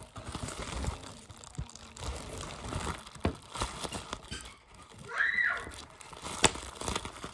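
Plastic bubble wrap squeezed and crinkled by hand, with a string of sharp pops as bubbles burst and one loudest pop about six and a half seconds in. A short squeal-like tone rises and falls about five seconds in.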